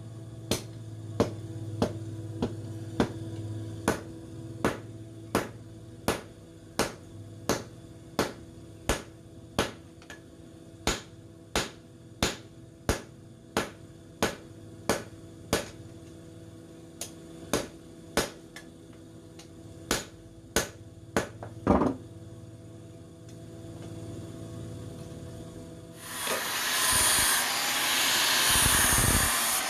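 Hand hammer striking steel on an anvil in a steady rhythm, about one and a half blows a second, with a faint ring: the steel from a marble-cutting machine blade is being forged into a knife. The blows stop a little after halfway, and near the end a loud steady rushing noise starts.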